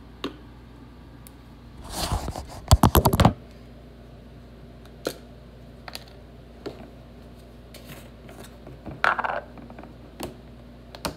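Clicks and knocks from hands handling kitchen things and the phone during meat seasoning. About two seconds in comes a quick rattle of rapid sharp clicks, the loudest sound, followed by scattered single clicks and a short rustle.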